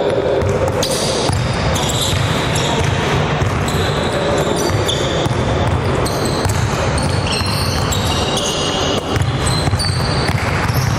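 Basketball players' sneakers squeaking in many short high chirps on a hardwood court, over the thuds of a basketball being bounced and the general shuffle of a team running a drill.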